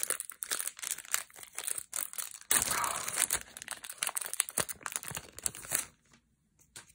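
Foil wrapper of a Magic: The Gathering set booster pack crinkling and tearing as it is opened by hand, louder about two and a half seconds in. The crackle stops about six seconds in, leaving only a few faint clicks.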